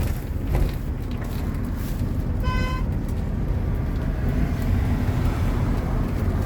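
Moving car heard from inside the cabin: a steady low rumble of road and engine noise. About two and a half seconds in there is a short beep.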